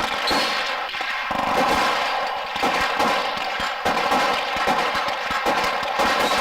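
Gunfire on a firing range: many sharp shots in quick, irregular succession, some running together.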